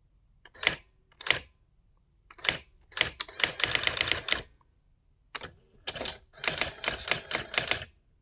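Brother AX-20 electronic typewriter's daisy-wheel print mechanism striking characters: a few single strikes, then two quick runs of rapid strikes at about eight a second.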